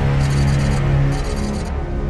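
Dramatic soundtrack music with a held low note.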